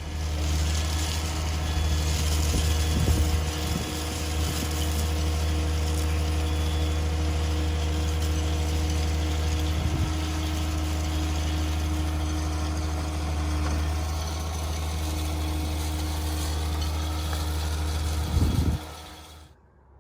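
Heavy construction machine's engine running steadily at a low, even pitch, with a loud knock near the end before the sound cuts off abruptly.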